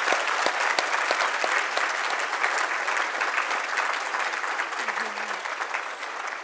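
Audience applauding, dense steady clapping that slowly fades toward the end.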